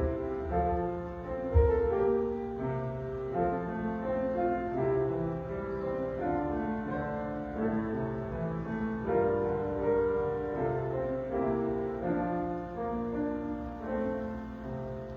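Piano playing slow, quiet offertory music in held chords, softening near the end.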